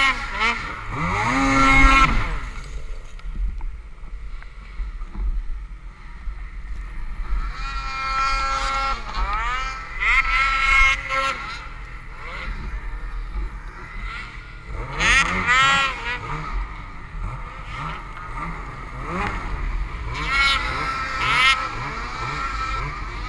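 Snowmobile engines revving in repeated bursts while riding through deep powder snow, the pitch climbing and dropping with the throttle and settling back to a lower drone between bursts.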